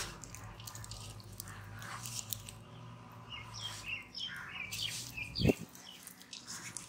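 Wet squishing and crunching of chicken pieces being worked by hand in flour and spiced batter, with scattered crackles. Birds chirp from about three to five seconds in, and there is a single loud thump about five and a half seconds in.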